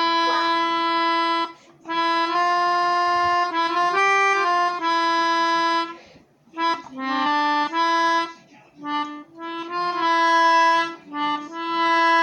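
Glarry melodica blown through its long mouthpiece tube: a series of long held reedy notes, mostly on one pitch with a few short steps up and down, separated by brief breaths.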